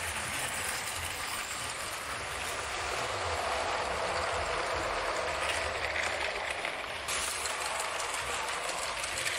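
Motorised LEGO trains running on plastic track: a steady whirring rattle of small electric motors and plastic wheels on the rails. It grows louder as the passenger train passes close, then changes abruptly about seven seconds in.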